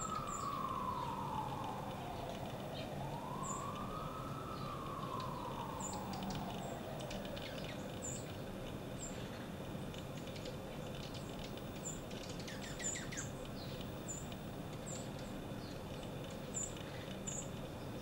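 An emergency-vehicle siren wailing, its pitch sweeping slowly up and down, fading out about seven seconds in. Small birds give short, very high chips throughout.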